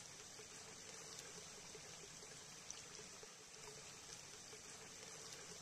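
Near silence: steady faint hiss of room tone with a low hum.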